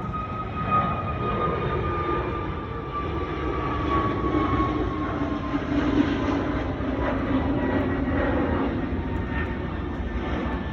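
Jet airliner's engines at takeoff thrust: a steady roar and rumble with a high fan whine that slowly falls in pitch as the aircraft passes.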